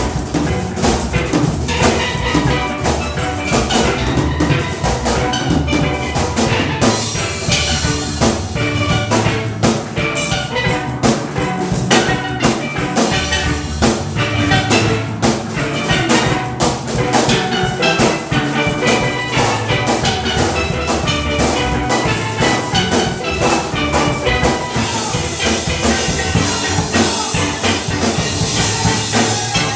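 Steel drum band playing an upbeat tune: many steelpans struck in fast, rhythmic runs of ringing notes over drums and percussion.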